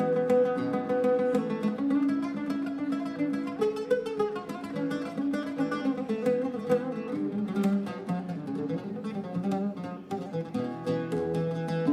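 Background music led by a plucked string instrument, a guitar-like melody with rapid plucked notes.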